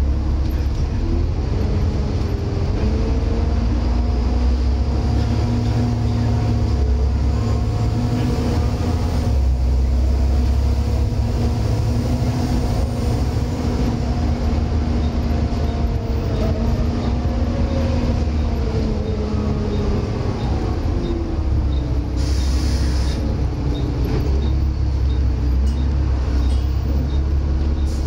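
Volvo B7TL double-decker bus under way, heard from the upper deck: a steady diesel rumble with whining tones that rise and fall with road speed, the ZF automatic gearbox whine and the vacuum-cleaner-like cooling-fan whine known to enthusiasts as the "hoover". A brief hiss a little after twenty seconds in.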